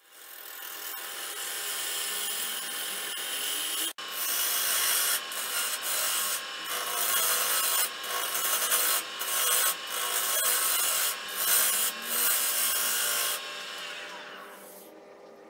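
Turning tool cutting a spinning algarrobo wood blank on a wood lathe: a loud scraping hiss that breaks off briefly several times as the tool lifts from the wood. Near the end the cutting stops and the sound fades as the lathe runs down.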